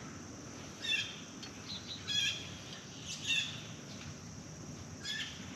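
A bird chirping in short calls, about one a second, over a faint steady low background noise.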